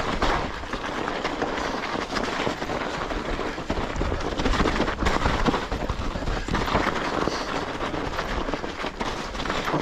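Mountain bike riding down a snowy trail: a steady rush of tyres over snow and rough ground, with continuous rattling and clattering from the bike.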